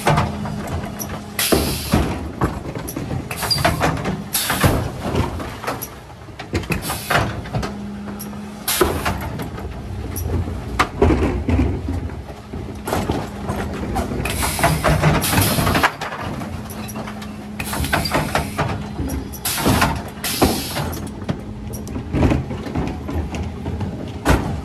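A Mercedes Econic refuse truck with a Faun Variopress rear-loader body at work. Zoeller lifters tip wheelie bins into the hopper with repeated clangs and bangs, and the packer mechanism sweeps the waste in, over the steady hum of the truck's engine and hydraulics.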